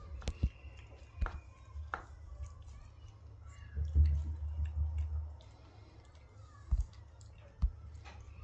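Cat biting and chewing cat grass, with a few sharp crunching clicks as the blades are bitten off, spread through the clip. A low rumble a little before the middle, lasting just over a second.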